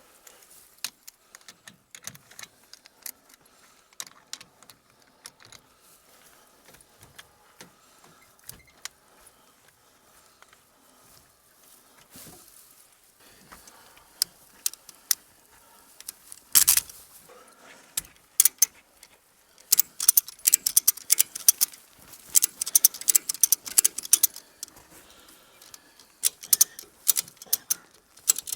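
Metal ratchet being cranked to tighten down a hay load, clicking in quick runs that grow dense and loud in the second half, with scattered lighter clicks and rustling before.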